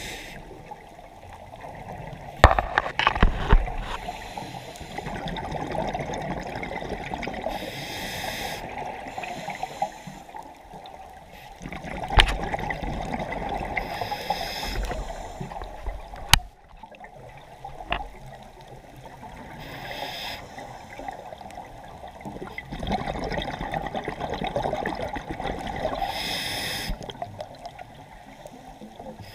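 Scuba breathing heard underwater through a regulator. There is a hiss on each inhale about every six seconds and bubbling exhales in between, with a few sharp clicks.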